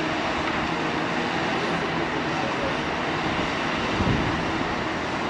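Heavy diesel excavator engine working steadily under load, with other site machinery running alongside, and a low thud about four seconds in.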